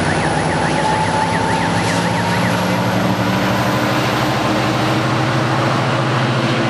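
A distant emergency-vehicle siren in fast yelp mode, sweeping up and down about three times a second, which fades out a couple of seconds in. Under it is a steady, loud low hum.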